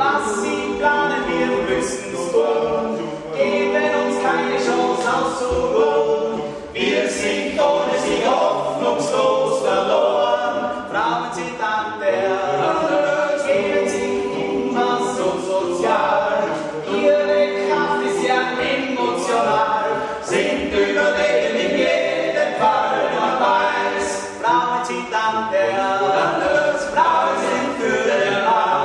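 Male voice choir singing a cappella in several parts, the voices coming in together at the start and carrying on without a break.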